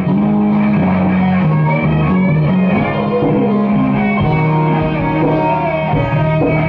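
A rock band plays live in rehearsal: distorted electric guitars over a bass guitar line, with the low bass notes changing every half second or so.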